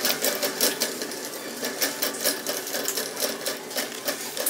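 Shopping cart rolling over a store floor, its wheels and wire frame rattling in a fast, uneven clatter that is picked up by a camera mounted on the cart.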